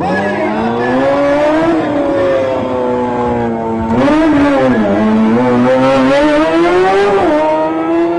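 Sportbike engine revving hard through wheelie stunts, its pitch climbing, holding and dipping as the throttle is worked. An abrupt change comes about four seconds in.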